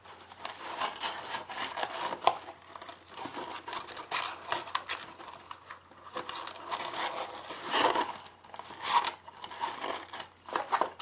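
Ribbon being wrapped around a cardstock box and tied in a bow: irregular rustling, crinkling and rubbing of ribbon against paper.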